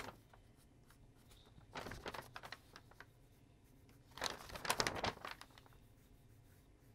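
Pencil strokes scratching across drawing paper as a sketch is worked over. There is a short run of strokes about two seconds in and a longer, louder run of strokes from about four seconds.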